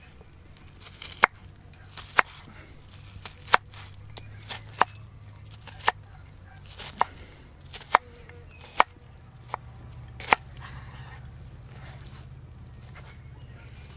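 Santoku knife chopping a red onion on a wooden cutting board: about a dozen sharp knocks of the blade on the board, roughly one a second, stopping about ten seconds in.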